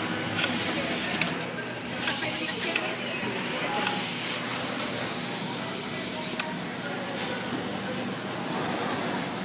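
Three bursts of sharp hiss from a pressurised air jet, the last about two and a half seconds long, each cutting off suddenly. Beneath them runs the steady hum of sewing machinery.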